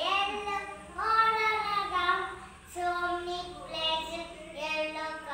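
A young child singing, a few short melodic phrases with brief breaks between them.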